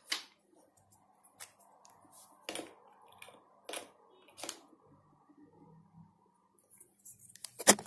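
Scattered light clicks and taps of a USB flash drive being handled and plugged in to try it, over a faint steady hum, with a louder rustle just before the end.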